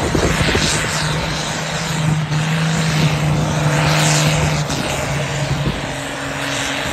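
Heavy engine of a pulling vehicle running loudly at steady revs, a constant deep drone, which eases briefly about five seconds in before picking up again.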